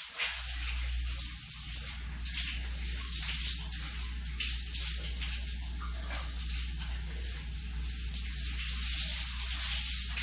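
Shower water running and splashing, a steady hiss with uneven spatters. A low rumble joins it just after the start and holds steady.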